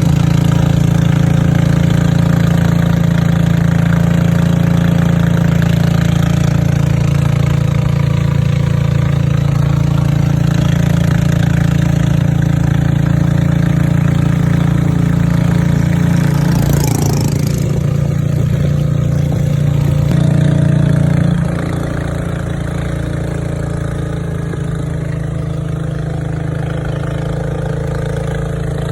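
Boat engine running steadily with a low, even hum; it drops a little in loudness about twenty seconds in.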